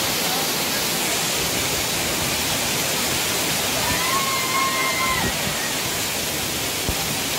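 Waterfall pouring down a steep rock face into a pool: a loud, steady rush of water. About four seconds in, a high held tone rises over it for about a second.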